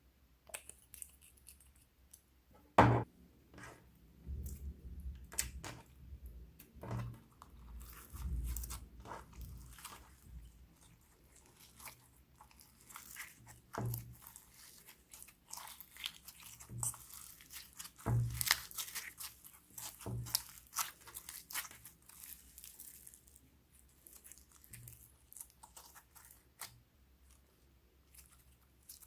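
Slime being squished and kneaded by hand, giving irregular sticky clicks, pops and crackles, with the loudest pop about three seconds in.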